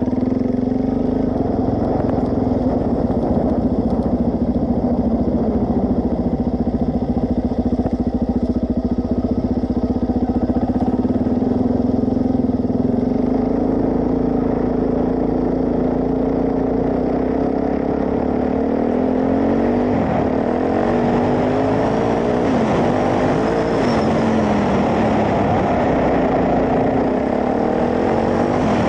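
Suzuki DR-Z400S single-cylinder four-stroke engine running steadily under way. Its revs rise and fall a few times about two-thirds of the way through.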